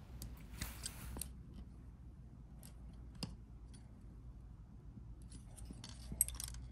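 Faint handling noise from an LCD module and circuit board being worked apart by hand: small plastic clicks and rubbing, with a few sharper ticks.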